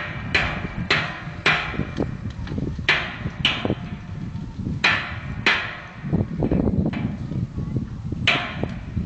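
Hammer blows on a steel oil drum, each strike ringing briefly, about nine blows at an uneven pace with a longer pause near the end.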